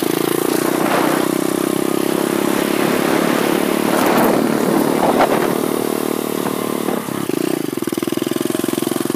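SSR 125cc pit bike's single-cylinder four-stroke engine running under way, heard through an earphone microphone. About seven seconds in the revs drop and the engine settles into a lower, evenly pulsing note.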